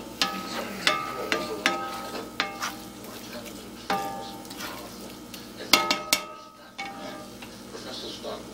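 Slotted spatula stirring and scraping scrambled eggs in a cast iron skillet, knocking against the pan so that it rings briefly with each stroke, over a low frying sizzle. The knocks come irregularly, with a louder cluster about two-thirds through, then only the sizzle.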